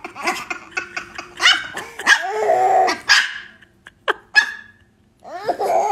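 Long-haired Chihuahua barking several times in short, sharp yaps, with one longer bark in the middle.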